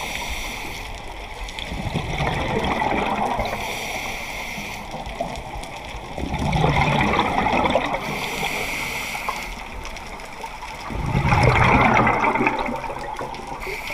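Scuba diver breathing underwater through a regulator: a hissing inhale, then a bubbling, gurgling exhale, three breaths about four and a half seconds apart.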